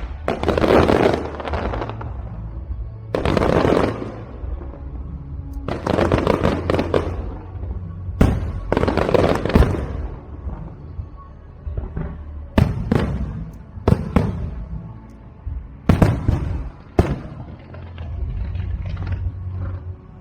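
Aerial fireworks shells bursting one after another, each sharp bang trailing off into crackle, a burst every couple of seconds and several close together in the second half. A steady low hum runs underneath.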